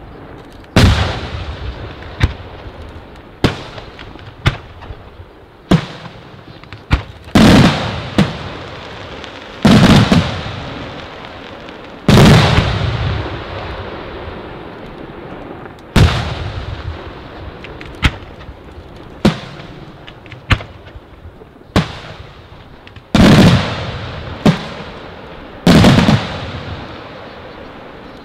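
Aerial firework shells bursting with loud booms at irregular intervals, mostly one to two seconds apart, with a longer pause midway. The bigger bursts roll away in long echoing tails, and smaller sharp cracks fall between them.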